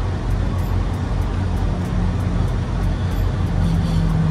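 Steady low rumble of idling diesel truck engines, with a hum that grows a little stronger near the end.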